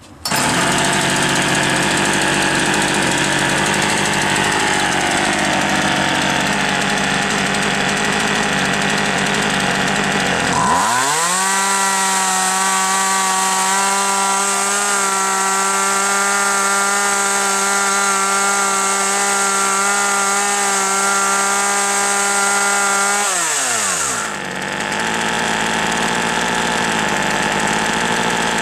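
Partner 351 two-stroke chainsaw idling, then revved up to full throttle at about eleven seconds in and held at a steady high pitch for about twelve seconds before dropping back to idle. This is a tachometer check of the revs after the carburetor adaptor air leak was fixed, and the speeds come out within reasonable limits.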